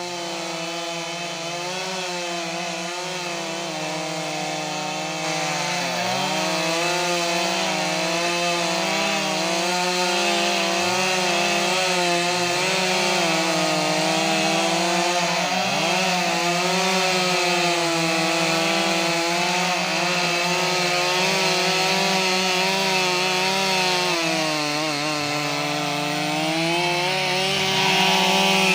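Stihl 382 chainsaw's two-stroke engine running at high speed while cutting through wood. Its pitch wavers up and down continuously as the chain loads and frees in the cut.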